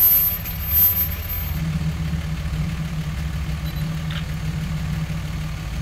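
Hot rod roadster's engine idling steadily with a low rumble. Two brief louder noises about a second apart break in near the start.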